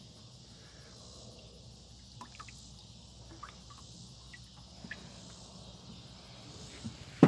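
Quiet outdoor background with a faint steady insect-like hum, scattered light clicks of handling, and one sharp knock at the very end.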